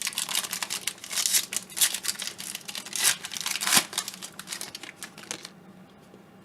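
Trading card pack wrapper crinkling and tearing open, a dense crackly rustle that stops about five and a half seconds in.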